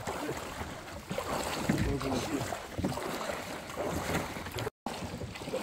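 Water sounds around a kayak on the move, with wind buffeting the microphone. The sound cuts out for an instant near the end.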